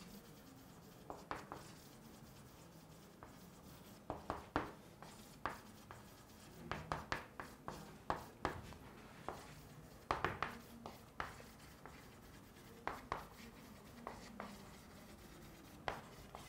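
Chalk writing on a chalkboard: faint clusters of quick taps and strokes, each cluster a word or letter group, with short pauses between them.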